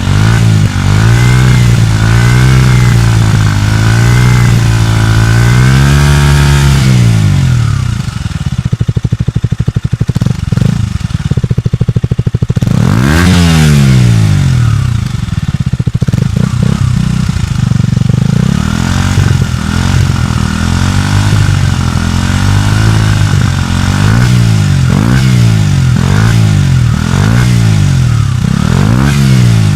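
KTM Duke 125's single-cylinder four-stroke engine through its stock exhaust, revved again and again in short throttle blips. It drops back to a lumpy idle for a few seconds about a third of the way in, then gives one higher rev, and the quick blips resume.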